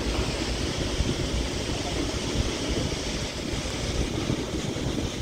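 Wind buffeting the microphone over the steady rush of river water pouring through dam floodgates.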